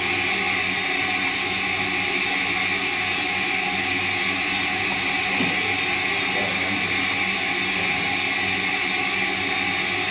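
Semitool ST-240 spin rinse dryer spinning a wafer cassette at about 2,000 RPM in its dry cycle: a steady rushing hiss over a low motor hum. It is running smoothly, with no vibration.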